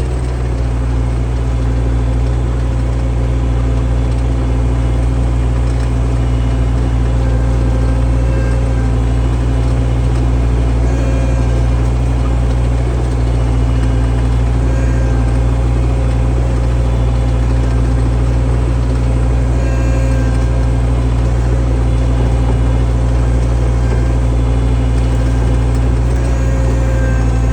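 Skid steer engine running steadily at a constant speed: a deep, even drone.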